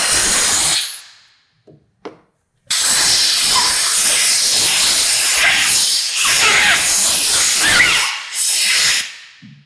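Compressed air hissing from an air-compressor blow gun whose nozzle is forced under a rubber handlebar grip to float it onto the bar. There is a short blast at the start, then a long blast from about three seconds in, briefly broken midway, with wavering squeals as air escapes from under the rubber.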